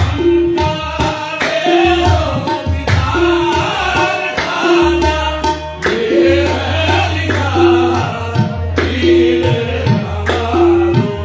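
Live qawwali music: harmoniums and tabla playing a steady rhythm, with a short tone repeating about every second and a half, under the voices of the qawwals singing.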